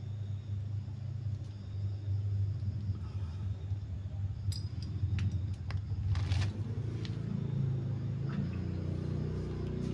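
A light metal leash chain clinks a few times as a young pig-tailed macaque fiddles with it. Under it runs a steady low hum that shifts about two-thirds of the way through.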